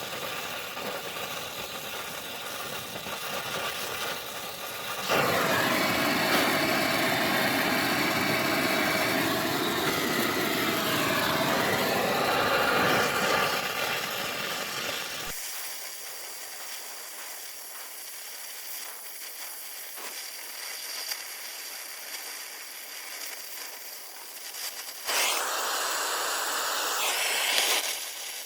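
Oxy-acetylene torch flame hissing steadily while welding a sacrificial bolt onto a seized oil pan bolt. It is much louder for about eight seconds from around five seconds in, and again for a few seconds near the end.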